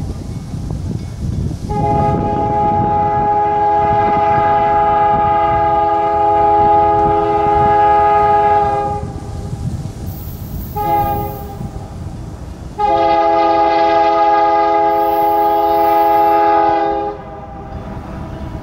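Air horn of a lead BNSF diesel locomotive sounding the grade-crossing signal: a long blast, a short one, then another long one, as the coal train approaches a road crossing. The low rumble of the locomotives' diesel engines runs underneath.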